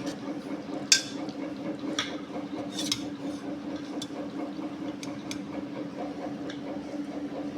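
A spoon clinking and scraping against a cooking pot as a simmering chicken curry is stirred, with sharp knocks about once a second over a steady low hum.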